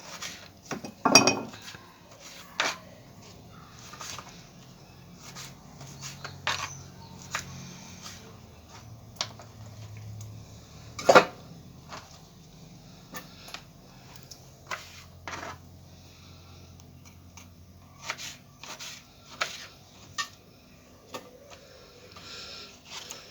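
Kitchen utensils and dishes clinking and knocking while oranges are seeded and cut up. The sharp clicks are scattered irregularly, with the loudest knocks about a second in and about eleven seconds in.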